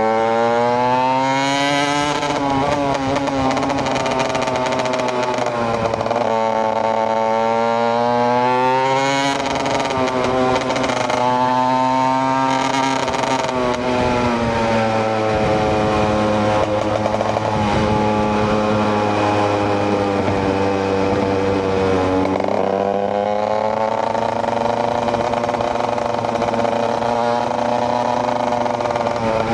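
KTM EXC 125 two-stroke single-cylinder motorcycle engine running under way. Its revs climb and fall several times as the throttle is worked, with a longer steadier stretch in the middle.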